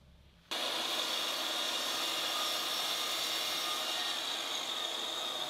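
Festool Kapex sliding miter saw running, a steady high motor and blade whine that starts abruptly about half a second in.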